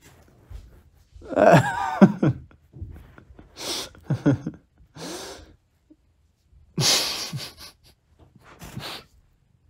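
A man laughing in short, breathy bursts, with some sharp exhalations between them.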